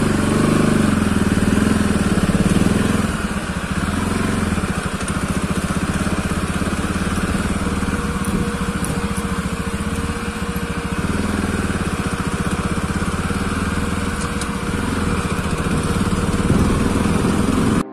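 Bajaj Pulsar NS200's single-cylinder engine running steadily at a low, even engine speed, a little quieter after about three seconds.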